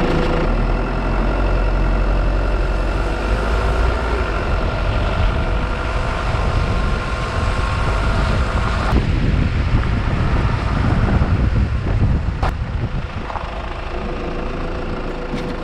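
A vehicle engine running while driving, with a steady whine that stops about nine seconds in, followed by a rougher low rumble and a couple of sharp clicks.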